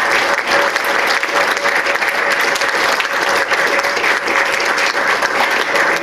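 Audience applauding steadily: a roomful of people clapping.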